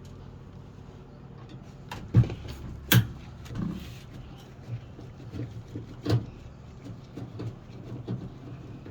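Sharp knocks and clicks of a screwdriver and plastic and metal parts being handled while screws are taken out of a washing machine's water inlet valve, the loudest about two and three seconds in, over a steady low hum.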